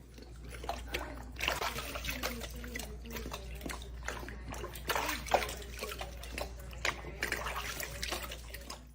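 Irregular splashing and sloshing of water over a steady low hum.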